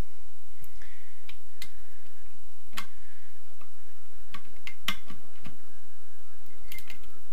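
Irregular metallic clicks and clinks from a half-inch drive wrench and socket being set onto the cylinder head bolts and turned a quarter turn to loosen them. The two sharpest clicks come about three seconds in and about five seconds in.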